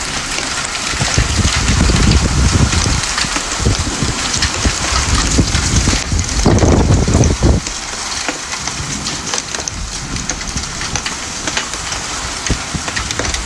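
Heavy rain driven by strong storm wind, pattering hard on the balcony, with gusts buffeting the microphone in a low rumble. The strongest gust comes about six to seven and a half seconds in, after which the wind settles to a steadier rush.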